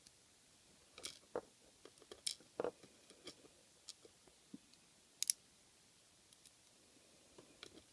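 Scattered light clicks and small knocks of lock-picking tools and a lock being handled, bunched together between about one and three seconds in, with a sharper pair of clicks later.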